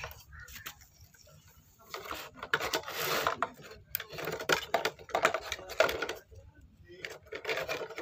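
Wooden toy dump truck being handled as its bed is tipped up, with wood knocking and scraping and the toy animals inside rattling. The sounds come in clustered bursts of knocks and scrapes, quieter for the first second or two.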